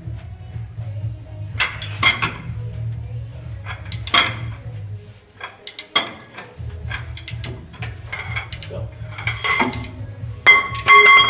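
Steel hand tools and engine parts clinking and clanking in irregular bursts, with a louder ringing metal clank near the end, over a steady low hum that stops for about a second midway.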